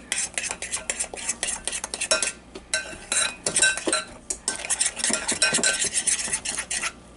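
A spoon stirring a thick slime mixture of glue and shaving cream in a glass bowl, with many irregular scrapes and clicks against the glass.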